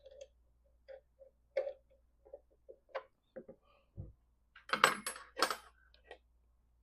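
Small metal parts and tools being handled on a workbench: scattered light clicks and knocks, with a louder clattering rattle about five seconds in.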